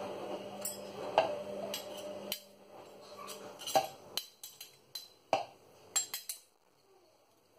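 Metal garlic press and a kitchen knife clicking and tapping against each other and a plastic blender cup as pressed garlic is scraped off the press: a string of about a dozen sharp, separate clicks. A steady low hum cuts off after about two seconds, and the last second is nearly silent.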